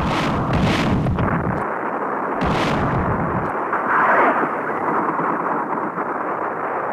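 Battle sounds of gunfire and blasts over a steady rumbling, hissy din: two sharp shots in the first second, another about two and a half seconds in, and a louder blast about four seconds in.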